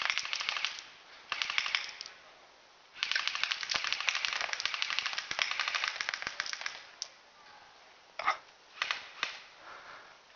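Airsoft gun firing rapid automatic bursts of sharp clicks: two short bursts, then a long burst of about four seconds, followed by a few separate shots near the end.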